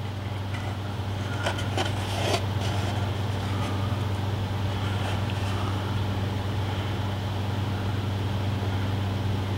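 Steady low hum of room background noise, like a fan or mains hum. A few light clicks and rustles come about one and a half to two and a half seconds in as the model building is handled and turned over.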